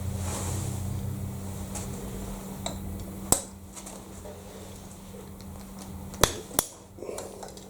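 Metal tools clinking on a steel milling vice while its jaw screws are tried for tightness. There are a few sharp metallic clinks, the clearest about three seconds in and two close together near the end, over a steady low hum.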